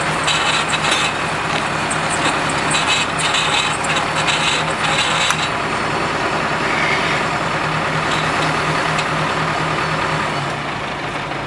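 Septic vacuum truck running steadily with a low engine hum, with fast metallic rattling over roughly the first half, fading slightly near the end.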